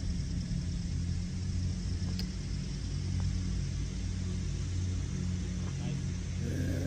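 Steady low outdoor rumble, with one faint sharp click about two seconds in.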